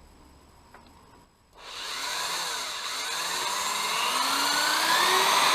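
Power drill starting about a second and a half in and running steadily, its cobalt bit cutting into a seized bolt; the motor's pitch rises and falls slightly with the load. The bit drills in easily.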